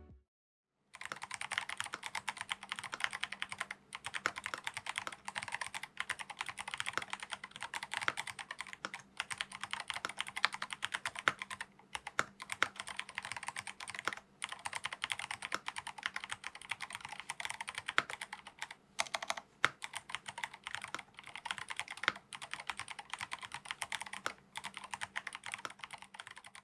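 Continuous fast typing on a MelGeek Pixel mechanical keyboard: a dense run of key clicks starting about a second in, with a few brief pauses.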